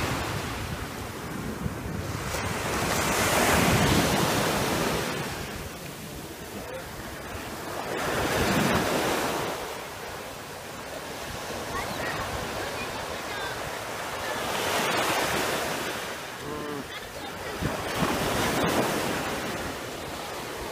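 Small surf breaking and washing up a sandy beach, swelling and fading four times, several seconds apart, with wind buffeting the microphone.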